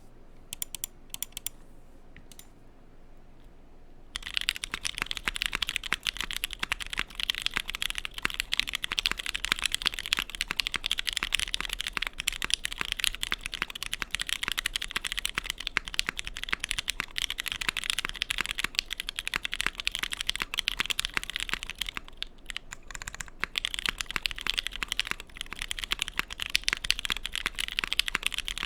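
Custom Bakeneko mechanical keyboard with JWK Pewter switches on an FR4 half plate and ABS keycaps, typed on without masking tape under the PCB. A few single keystrokes, a short lull, then about four seconds in fast continuous typing, with a brief pause near the end.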